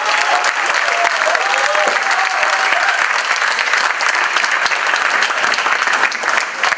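Audience applauding loudly and continuously, with a few rising-and-falling calls from the crowd in the first three seconds; the clapping stops abruptly at the end.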